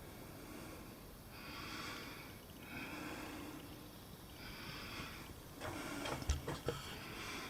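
A man breathing heavily, with slow, even breaths about every second and a half, out of breath from the exertion of climbing down into the cave. Near the end come a few sharp knocks and one low thump, like handling or scuffing.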